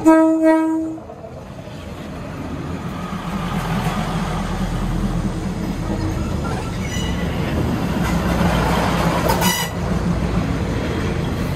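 Diesel railcar horn ending a blast in the first second, then the train rolling past close by, its rumble growing louder over the next few seconds and staying steady. There are a couple of short high squeals about seven and nine and a half seconds in.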